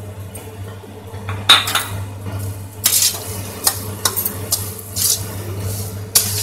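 Metal spatula scraping and clinking against a nonstick kadai while cashews and raisins are stirred into thick sweet vermicelli, in repeated strokes from about a second and a half in. A low steady hum runs underneath.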